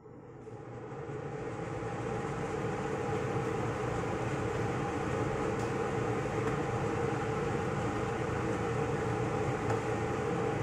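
Kitchen extractor fan switched on, spinning up over about two seconds and then running with a steady drone and a faint hum.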